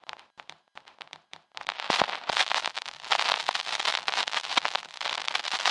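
Crackling: a few scattered sharp clicks, then a dense, busy crackle from about a second and a half in.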